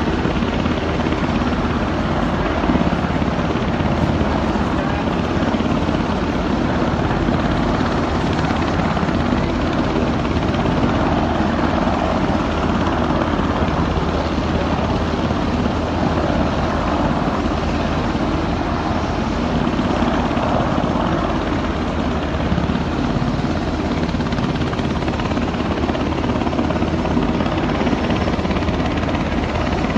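Aircraft noise: a steady, unbroken drone with no change in pitch or level.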